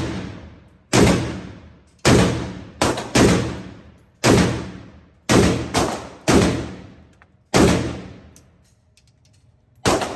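Semi-automatic gunfire from an AK-pattern 7.62×39 gun: about ten single shots at an uneven pace, some in quick pairs, each followed by about a second of echoing decay.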